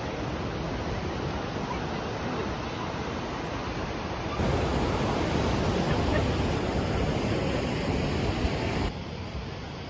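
Sea surf breaking on a sandy beach, a steady rush of waves. About four seconds in it cuts to a louder stretch of surf, then drops back near the end.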